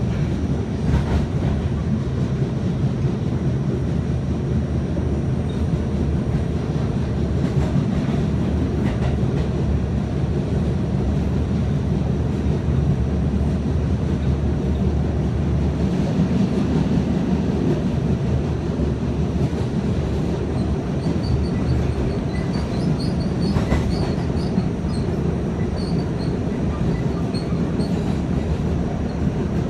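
R68A subway car running at speed, heard from inside the car: a steady rumble of wheels on rail with a few faint clicks from rail joints. A faint high-pitched wheel squeal comes and goes in the second half.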